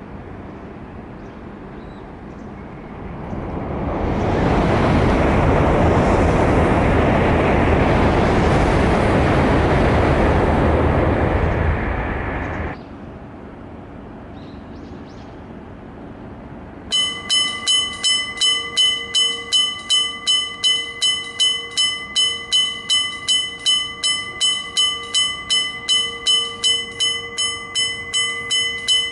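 Electric-bell railway level crossing warning bell ringing: metallic strikes with a ringing tone, about three a second, starting some seventeen seconds in. Before it, a loud rushing noise swells up and then cuts off abruptly.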